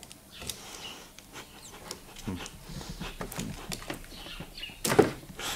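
Scattered small clicks, scrapes and rustles of hands working at a taped electrical power connector on a trolling motor's supply cable, with a single sharper, louder noise about five seconds in.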